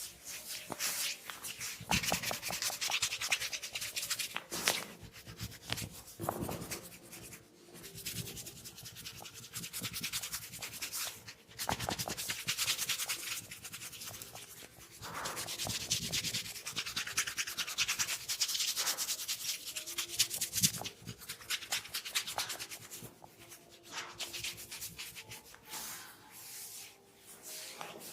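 Hands rubbing and massaging a person's scalp and hair, making a scratchy rubbing sound that swells and fades in stretches.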